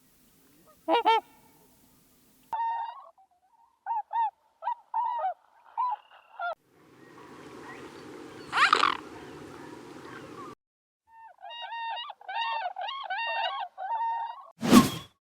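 Swans honking: a series of short, nasal, pitched calls in several spliced clips, with one call rising in pitch over a noisy background a little past the middle. A sharp knock near the end.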